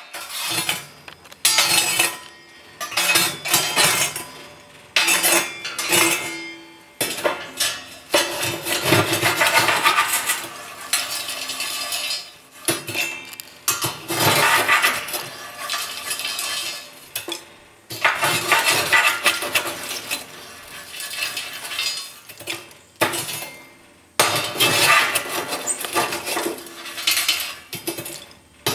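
Stainless steel ash-sifting screen scraping and clinking against the floor and walls of a wood stove's firebox, with coals and ash rattling in the mesh, in repeated bursts of clatter with short pauses between.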